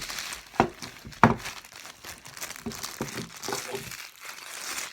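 A wrapper crinkling and crackling as it is pulled and peeled off a ring light, with two sharp louder snaps about half a second and just over a second in.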